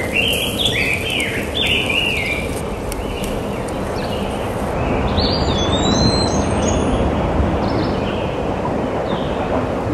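Steady wind rushing over the microphone, with a small bird chirping in quick rising-and-falling notes in two short bouts, at the start and again midway.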